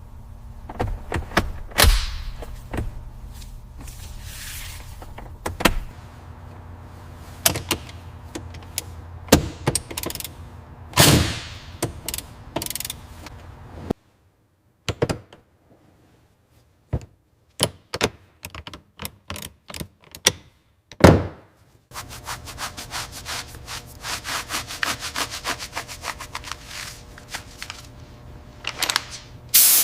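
A string of sharp knocks and thuds with a few scraping sweeps, then a stretch of scattered single clicks and one loud knock, and near the end a fast, even run of clicking.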